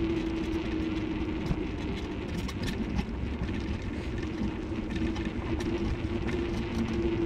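A steady mechanical drone, like an engine or motor running at constant speed: one unchanging hum over a low rumble, with scattered light ticks.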